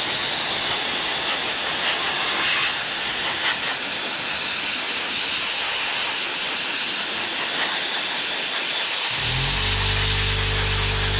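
Snap-on soda blaster spraying compressed air and soda media to strip paint and rust from an old steel toolbox: a steady loud hiss. About nine seconds in, background music with low held notes comes in under the hiss.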